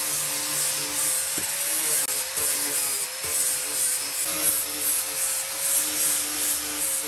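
Wooden piece being sanded: a continuous rasping hiss with a steady hum underneath.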